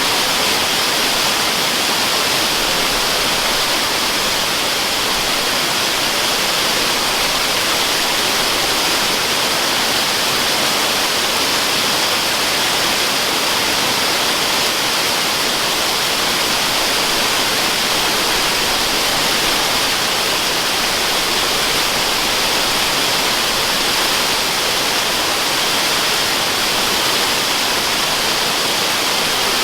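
Waterfall rushing, a constant even hiss with no breaks or changes.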